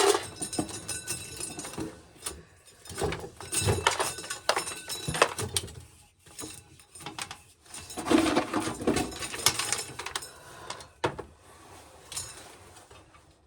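Corn sheller clattering in uneven bursts as ears of corn go through it, with kernels and metal parts rattling and clinking.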